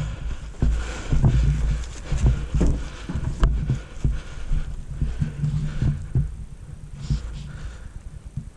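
Irregular low thumps and rustling right at the microphone, from a player's gear and movement against a body-worn camera, with a few short clicks.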